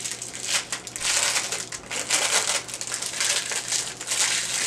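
Plastic wrapping crinkling and crackling in irregular bursts as it is handled and unwrapped by hand from a small nail drill bit holder.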